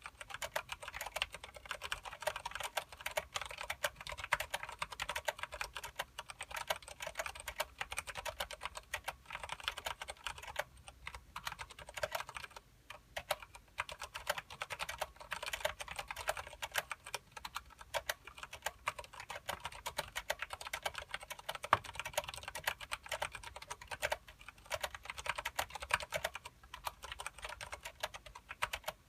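Continuous fast typing on a KBParadise v60 mechanical keyboard with Cherry MX Clear switches and thick PBT keycaps: rapid, dense keystroke clacks, with a couple of brief pauses about halfway through.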